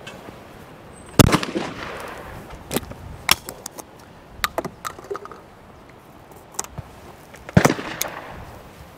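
Two shotgun shots at clays about six seconds apart, the first from a Kemen titanium-action over-and-under, each with a short echo. Between them come the clicks of the gun being broken open, the cartridges coming out and a fresh cartridge going into the breech.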